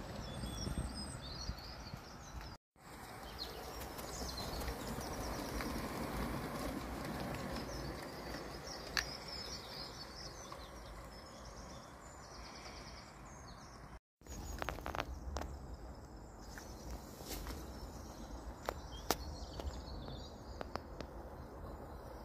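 Outdoor ambience: small birds chirping over a steady low rumble of wind, with a few sharp clicks in the last third. The sound cuts out briefly twice.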